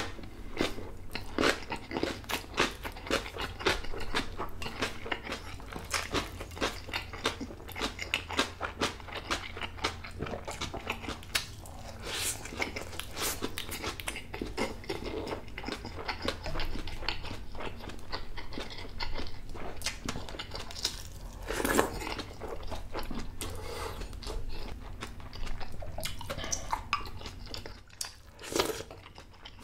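Close-miked chewing of food: a steady run of wet clicks and crunching bites, with a few louder crunches about twelve, twenty-two and twenty-eight seconds in.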